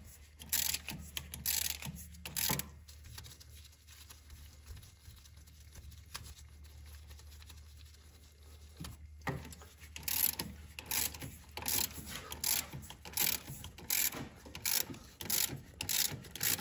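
Harmonic balancer puller being turned by hand in repeated strokes, drawing the stock balancer off the LS engine's crankshaft. The strokes come in a few bursts near the start, pause, then run steadily at about two a second from about ten seconds in.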